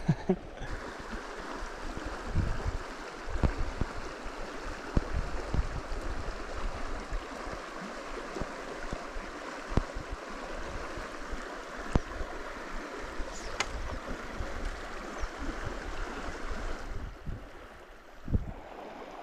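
River water rushing steadily over a riffle, with irregular low bumps beneath it. The rush drops away near the end.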